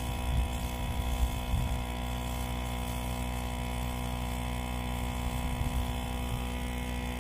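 Pressure washer running with a steady motor hum while its wand sprays a granite headstone, with a few brief louder thumps in the first couple of seconds.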